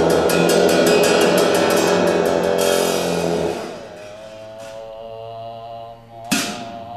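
Tibetan monastic ritual ensemble of dungchen long horns, a large frame drum and cymbals playing. A loud passage of rapid percussion strokes over the horns stops about three and a half seconds in, leaving sustained horn tones, and a single crash comes near the end.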